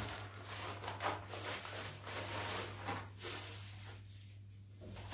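Paper parcel wrapping rustling and tearing as it is pulled open by hand, in soft scattered crackles that die down near the end.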